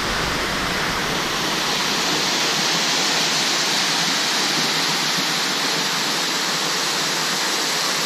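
Waterfall pouring down a rock cliff close by: a steady, unbroken rush of falling water.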